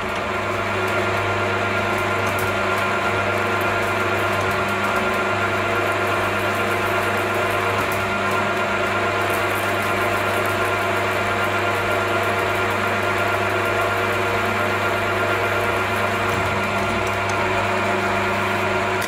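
Damatomacchine Orion 4.5 mill-drill running steadily in drilling mode, its spindle motor and gear head humming while a center drill spots a hole in an aluminium piece. The hum cuts off suddenly at the end.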